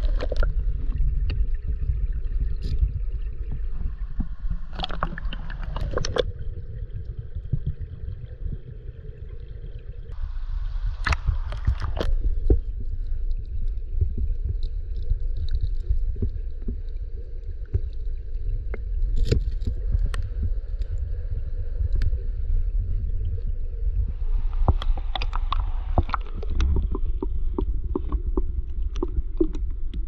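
River current heard through an underwater camera: a steady, muffled low rumble of flowing water, with scattered clicks and three brief stretches of crackling and bubbling, around five seconds in, about eleven seconds in and near the end.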